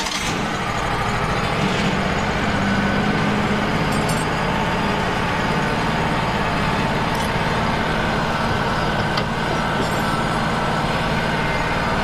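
Wood-Mizer LT35 sawmill's Kohler engine running steadily at a constant speed, just after being started with the key.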